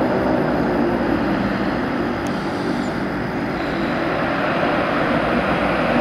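C-130 Hercules four-engine turboprop running: a steady propeller drone with a deep hum, easing a little midway and growing louder again near the end.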